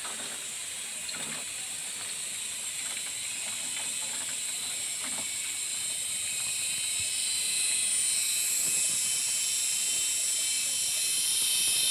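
Chorus of cicadas in the forest trees, a steady high shrill drone that grows louder in the second half, with a few faint rustles or steps near the start.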